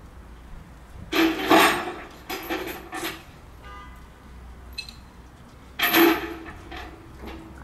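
Metallic clanking and scraping as a Lancashire and Yorkshire 0-6-0 saddle tank locomotive is unloaded down the rails of a low-loader trailer's ramp, in three short loud bursts, with a brief thin tone between the second and third.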